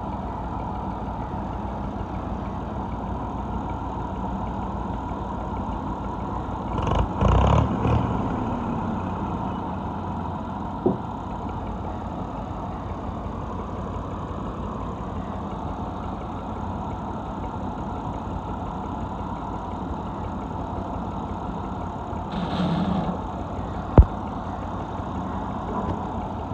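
Massey Ferguson tractor three-cylinder diesel engines running steadily at low revs. There is a louder rough burst about seven seconds in, and a sharp click near the end.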